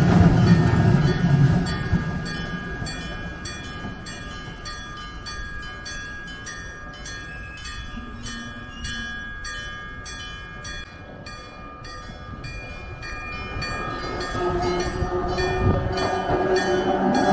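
Level-crossing warning bell, a real mechanical bell rather than an electronic tone, struck over and over in a steady quick rhythm, each strike ringing on. A passing train's rumble fades away in the first couple of seconds, and another train's rumble builds up over the last few seconds.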